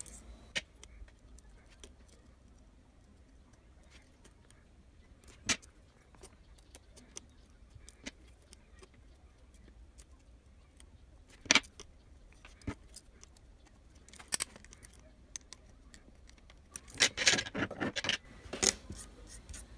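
Small metal tools on an LED circuit board: metal tweezers and a soldering iron giving a few sparse light clicks and taps while a replacement SMD LED is held and soldered in place, then a quick cluster of metallic clicks and rattling near the end.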